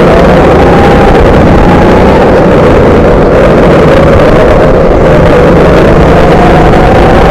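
Rental go-kart motor running at speed, heard loud from on board the kart, its pitch rising and falling a little with the throttle through the corners.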